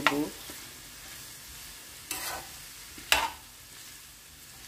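Diced carrots, green peas and liver sizzling in oil in a frying pan, with a steady hiss. A spoon scrapes and stirs through them twice, about two and three seconds in.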